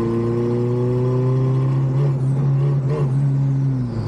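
Turbocharged Honda K24 four-cylinder engine in a Subaru Impreza running loud under load, its pitch rising slowly as the car picks up speed, holding, then dropping near the end.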